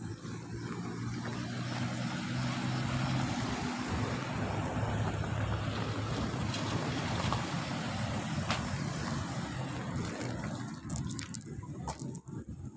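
A motor vehicle's engine running close by, a steady low hum under a rushing noise, fading away near the end.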